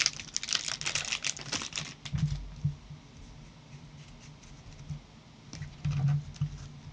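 Stack of trading cards in clear plastic sleeves and bag being thumbed through, the plastic crinkling and clicking in a quick run of small ticks for about two seconds. After that only faint handling, with a few soft knocks.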